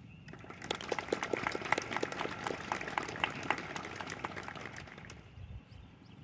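A small audience applauding: many separate hand claps start about half a second in and die away by about five seconds.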